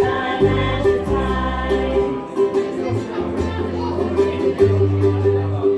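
A small ukulele band playing live: strummed and plucked ukuleles over long low bass notes that change about every second, with voices singing.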